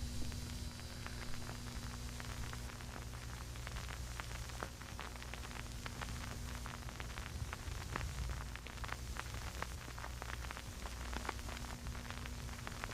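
Crackling static: a steady hiss full of dense little crackles over a low, steady electrical hum.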